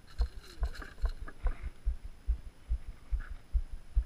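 Rhythmic low thumps, about two and a half a second, with a few light clicks and knocks in the first second and a half.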